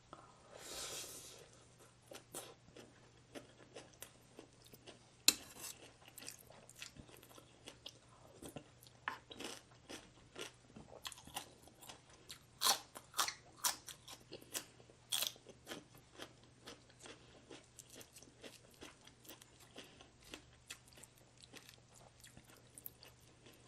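A person chewing crisp food close to the microphone, with irregular crunches that come in clusters and are loudest in the middle stretch. A short rushing noise comes about a second in, and a faint steady hum runs underneath.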